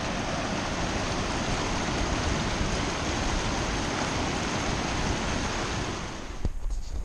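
Mountain creek rushing over boulders in a steady, loud rush of water. It fades out about six seconds in, leaving a few light knocks.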